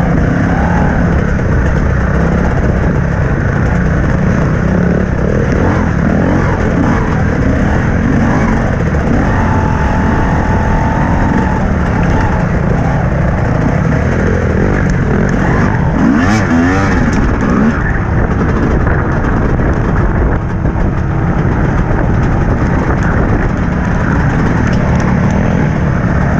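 TM 250 dirt bike engine running at a steady, low pace, heard from on board, with other dirt bikes close by. About sixteen seconds in, a short rev rises and falls.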